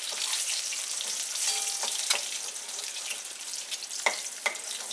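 Boiled eggs sizzling in hot oil in a kadai, with a spatula scraping and clicking against the pan as the eggs are lifted out. A few sharp knocks, the strongest about four seconds in.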